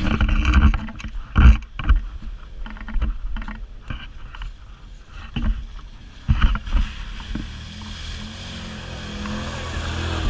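Side-by-side UTV driving through a muddy creek bed: sharp knocks and jolts from the rough ride and water splashing, over the engine's low running sound. In the last few seconds the engine settles into a steadier, slightly louder drone.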